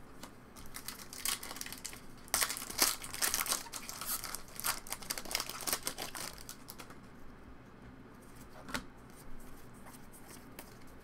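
Foil Pokémon Fusion Strike booster pack being torn open and crinkled, a dense crackling of foil loudest in the middle, then fading to quieter handling with one sharp snap near the end.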